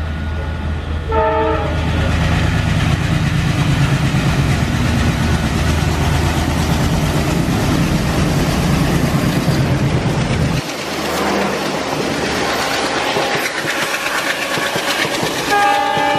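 WDM3A diesel locomotive hauling an express passenger train past at speed: heavy engine drone with a short horn blast about a second in, then the rush of the coaches over the rails after the engine sound drops away abruptly. A horn sounds again near the end.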